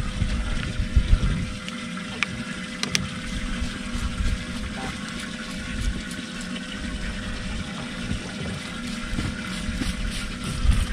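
A small electric motor on a bass boat humming at a steady, even pitch, with water sloshing and an irregular low rumble underneath.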